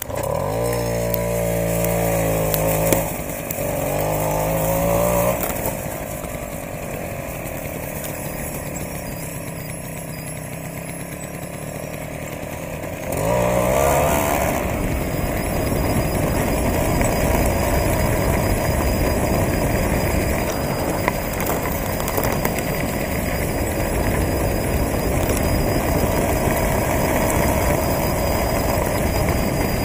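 Tomos Automatic moped's 49 cc two-stroke single-cylinder engine accelerating, its pitch climbing twice in the first five seconds, then easing off. About thirteen seconds in it climbs again and then runs steadily at speed over a constant rushing noise from riding.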